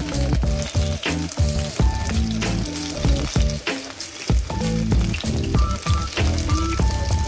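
Beef sausages sizzling and crackling in a frying pan, under background music with a steady beat.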